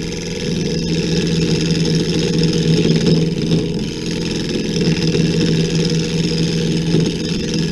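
WEN 3421 benchtop mini lathe running with a steady motor hum, while a hand-held turning tool on the tool rest cuts the spinning wood blank; the cutting noise swells and eases.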